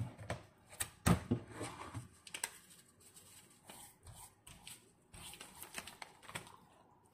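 Hands rubbing and patting seasoning into the skin of a whole raw fish: a run of irregular soft wet slaps and rubbing noises, loudest about a second in.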